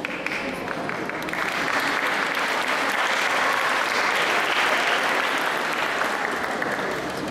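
Audience applauding: scattered claps at first, filling out into full, steady applause a little over a second in, easing slightly near the end.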